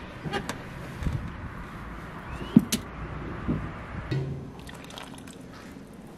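Water pouring into a pan, with a few sharp knocks and scuffs of rubber boots being pulled off and set down on paving stones; the loudest knock comes about two and a half seconds in.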